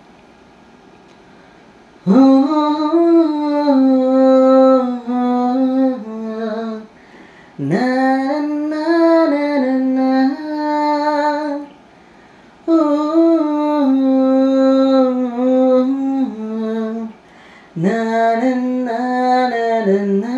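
A woman's voice singing a slow Tamil song melody, played back through the PA amplifier's speaker. It starts about two seconds in and comes in four long phrases of held notes with short breaks between them.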